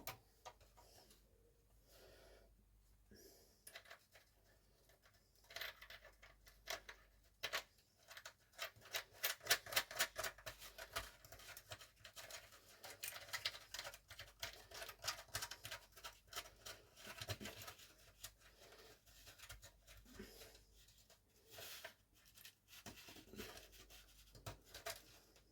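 Faint, irregular clicking and scratching of small hardware being handled: a nut being threaded onto the latch's threaded post by hand, with the ticks coming thickest in the middle stretch.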